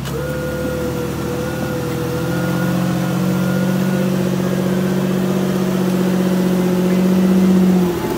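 Jeep engine running at steady revs under load, easing off briefly near the end and then picking up again.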